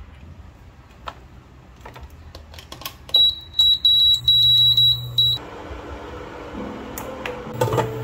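Induction cooktop control panel beeping: a quick run of about ten short, high beeps over two seconds, as its touch buttons are pressed to set the heat, with a low hum from the cooktop under the last of them. A few light knocks of cookware come before, and background music comes in near the end.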